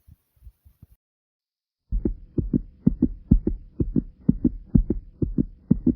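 Fast human heartbeat recorded close up: faint low thumps at first, about a second of dead silence, then loud lub-dub beats about two a second, over a faint steady hum.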